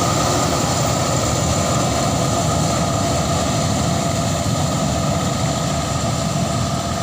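Combine harvester running steadily while harvesting rice, a low engine rumble under a constant whine from its machinery.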